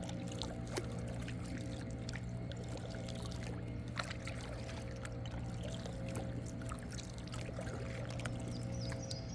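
Kayak on the water: paddle dripping and splashing, with scattered small ticks and knocks against the hull. A steady low hum runs underneath.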